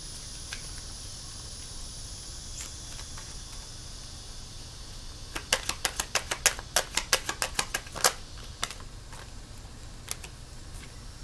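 A deck of tarot cards being shuffled by hand. A few scattered card clicks, then midway a quick run of sharp clicks, about six a second for around three seconds, over a low steady hum.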